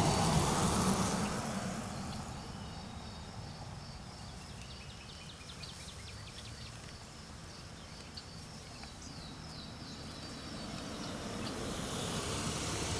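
Outdoor night ambience: insects chirping steadily in a high band over a low rumble. A loud rush of noise opens it and fades over the first couple of seconds.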